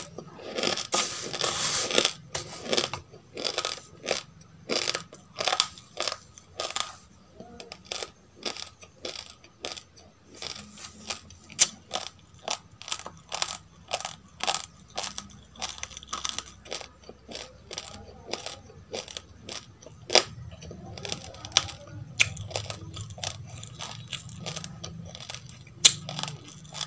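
Close-miked crunchy chewing of dry roasted rice grains, a steady run of sharp crunches about two a second.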